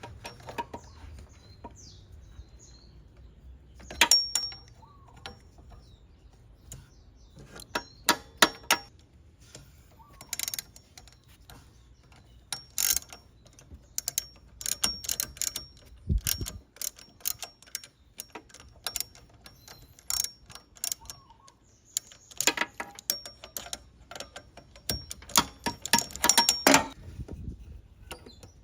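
Socket ratchet clicking in short bursts, with metal tool clinks between, as fasteners are worked on a scooter's rear brake.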